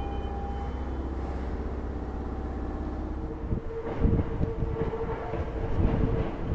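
Hankyu electric trains. First a steady low hum from the train at the platform. From about three seconds in, train wheels knock irregularly over rail joints and points, under a steady whine, as a train approaches.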